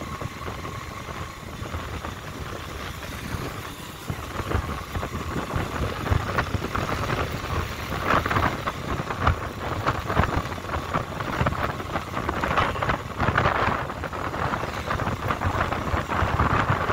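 Road vehicle running, with wind buffeting the microphone, growing gustier and louder from about four seconds in.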